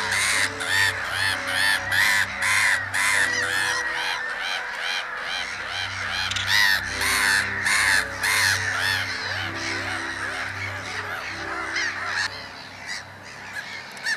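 A colony of black-headed gulls calling, many rapid overlapping harsh calls several a second, thinning out near the end. Soft background music with held notes plays underneath.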